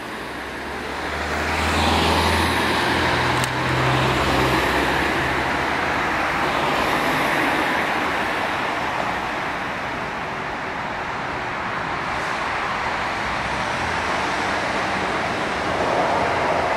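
Street traffic noise. A motor vehicle passes with a low engine hum in the first few seconds.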